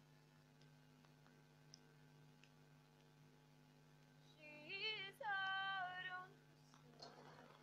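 A quiet stretch with a faint steady hum and a few soft clicks. About four and a half seconds in, a woman sings a short phrase: the voice glides up and then holds one note for about a second before it stops.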